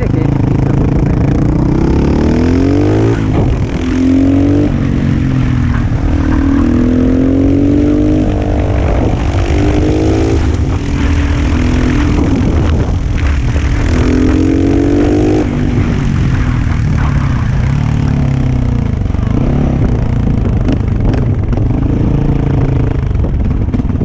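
Husqvarna SM 610 supermoto's single-cylinder four-stroke engine pulling hard, its pitch rising several times as it accelerates through the gears. In the last third it runs lower and steadier as the bike slows down.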